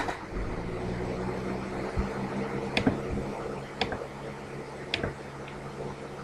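Room fan running with a steady hum and rushing noise, picked up with the hiss of a laptop microphone. Several sharp computer mouse clicks are spread through it.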